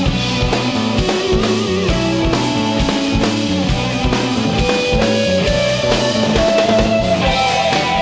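Instrumental rock music: a sustained electric-guitar melody over bass and a steady drum-kit beat, with a higher held note near the end.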